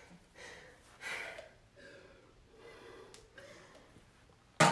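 A person breathing hard and catching their breath after an intense kickboxing cardio round, with audible breaths about one a second. A single sharp knock comes at the very end.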